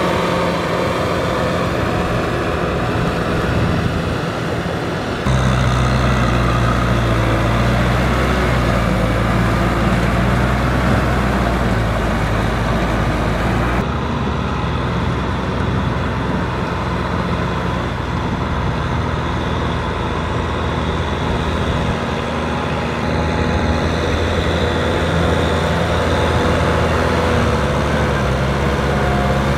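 Kubota M6040 tractor's diesel engine running steadily under load while its rear rotary tiller churns wet paddy mud. The engine note shifts abruptly about five seconds in and again about fourteen seconds in.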